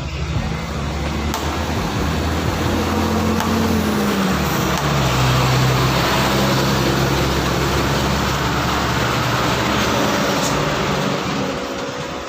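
A heavy engine running steadily with a broad rushing noise over it. Its low tone drops in pitch about four to five seconds in, and it eases off slightly near the end.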